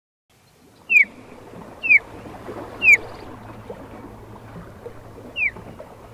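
Osprey giving short, sharp whistled calls that slur downward: three about a second apart, then a fourth near the end. Under them is a steady soft wash of shallow water.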